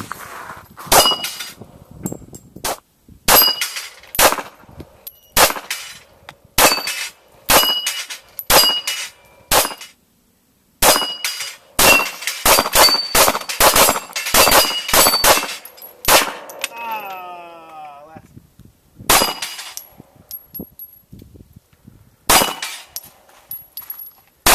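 Pistol shots fired in strings, the quickest around the middle, each hit setting steel plate targets ringing with a metallic clang. There is a short break about ten seconds in.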